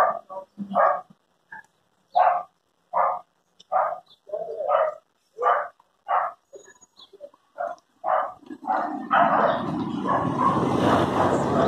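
A dog barking over and over in short, separate barks, about one or two a second. From about nine seconds in, a loud rushing noise rises under the barks.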